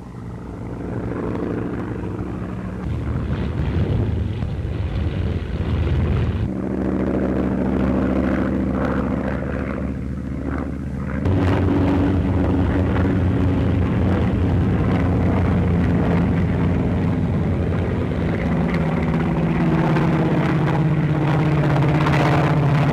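Propeller aircraft engine droning steadily in flight, its pitch and level jumping abruptly a few times.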